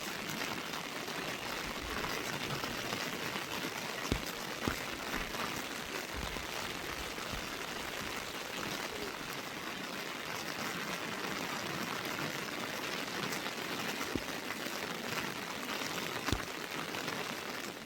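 Heavy rain falling steadily, an even hiss with a few sharper drop hits scattered through it.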